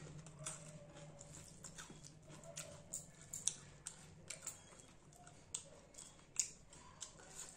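Close-up eating sounds of a person chewing rice and fish with her mouth open: irregular wet mouth clicks and lip smacks, a few of them louder.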